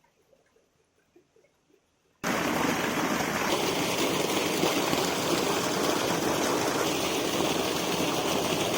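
Rushing water, a loud steady noise that starts suddenly about two seconds in after near quiet.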